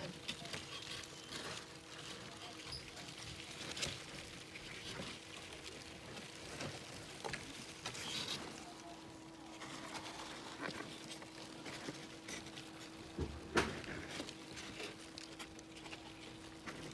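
Cardboard egg-crate flats being handled and shifted: scattered soft scrapes, rustles and light knocks, with one louder knock late on, over a faint steady hum.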